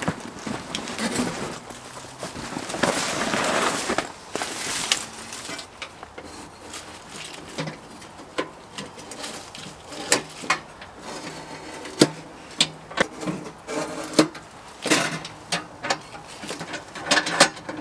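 Rustling, then a run of sharp knocks and clinks, some with a short metallic ring, as the parts of a Winnerwell wood-burning camp stove are unpacked and handled.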